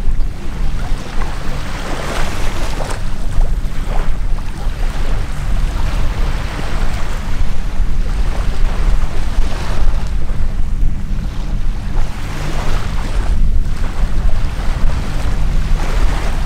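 Steady low drone of a formation of light aircraft engines passing overhead, mixed with gusty wind noise on the microphone.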